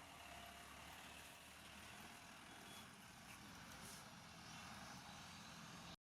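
Faint, steady background traffic noise with a low engine hum, cutting off suddenly near the end.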